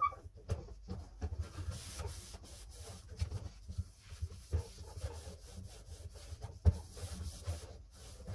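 Light handling noises while a refrigerator is being organised: scattered soft knocks of containers being set down and rubbing or wiping against surfaces, with a small clink at the start and a sharper knock about two-thirds through.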